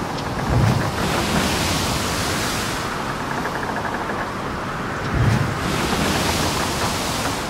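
Steady, fairly loud hiss of background noise, with two dull low thumps, one about half a second in and one about five seconds in.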